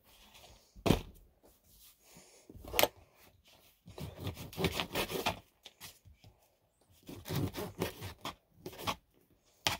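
Kitchen knife sawing through a farmer sausage, the blade scraping in two stretches of short rough strokes, with sharp knocks about one and three seconds in.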